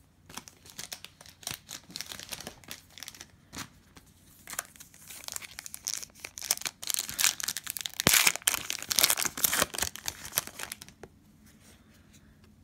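A foil trading-card pack being torn open and its wrapper crinkled by hand, a dense run of crackling and tearing that is loudest a little past the middle and dies down near the end.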